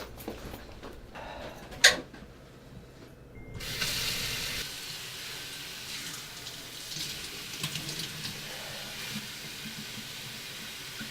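A single sharp click, then water running steadily, like a tap, from about three and a half seconds in.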